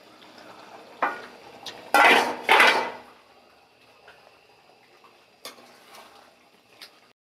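Metal pot lid lifted off a karahi and set down with two loud metal clatters about two seconds in, after a lighter knock about a second in; then a few light clinks of a spoon against the pan.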